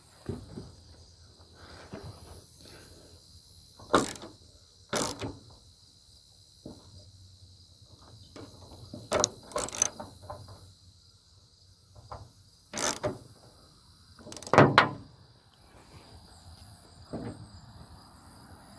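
Scattered sharp metal knocks and clacks, about seven, from handling and fitting a 1988 Ford F-150 cab door on its hinges, the loudest about three-quarters of the way in. Crickets chirp steadily in the background.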